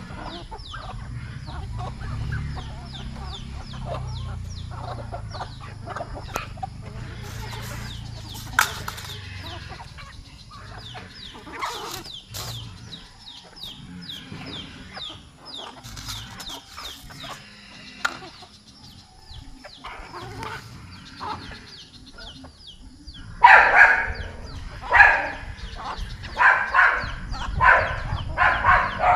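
A flock of chickens clucking and chirping as they feed. Near the end a run of loud, sharp, repeated calls starts up over the flock.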